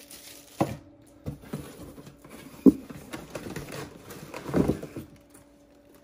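Handling noise from unpacking vacuum parts out of a cardboard box: a few scattered knocks and scrapes of parts and hands against the cardboard, the sharpest about two and a half seconds in, with a short scuffle shortly before the end.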